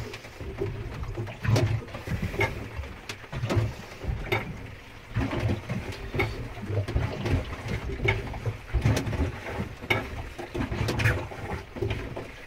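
Manual marine toilet hand pump being worked in steady strokes, about one a second, each stroke a low thump with a short high note, drawing seawater in to flush the bowl.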